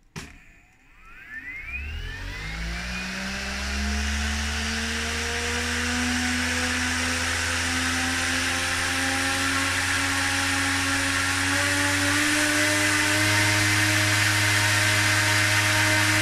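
Maytech MTI120116 brushless inrunner electric-surfboard motor spinning its propeller in air under remote throttle. A click comes first, then a whine rises in pitch over the first few seconds as the motor spins up, and then holds steady at speed.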